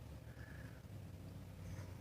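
Faint, steady low hum of background tone inside a parked car, with no distinct events.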